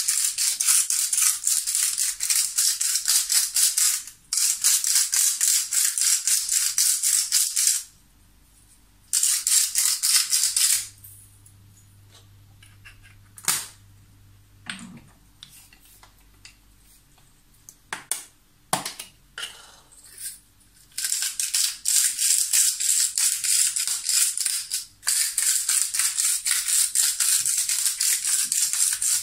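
Salt and spice shakers shaken hard over a plate of meat, a fast, even rattle of grains inside the jars. The rattling runs in long stretches, stopping for about ten seconds in the middle, where there are only a few scattered clicks and knocks.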